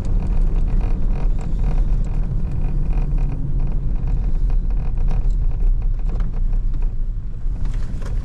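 Hunting truck driving, a steady low rumble of engine and road noise with scattered knocks and rattles.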